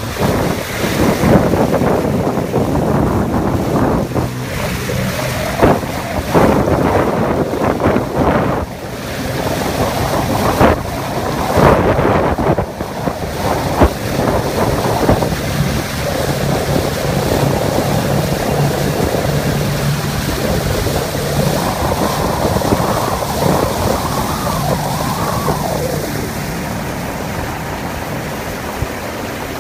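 Small boat under way on a river: wind buffeting the microphone in irregular gusts and water rushing and splashing along the hull. A low steady motor hum is heard beneath it at times, clearest in the second half.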